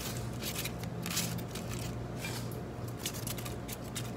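Rosemary sprigs and lemongrass stalks being handled and laid into a glass baking dish: a run of quick, crisp rustles and crackles, with a steady low hum underneath.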